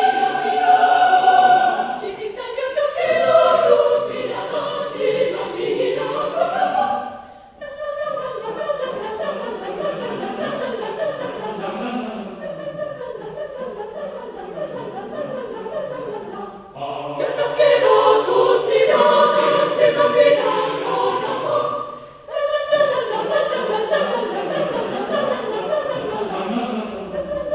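Mixed choir of women's and men's voices singing, with quick rhythmic passages and two short breaks between phrases, about seven and twenty-two seconds in.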